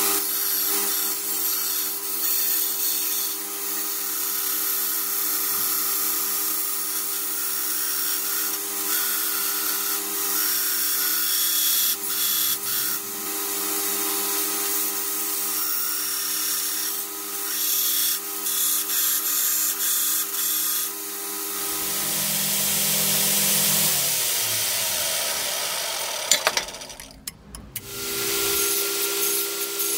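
Electric power tool running steadily, working a steel blade blank down to its profile, with the noise of tool on metal coming and going over a steady motor hum. It nearly stops briefly near the end, then starts up again.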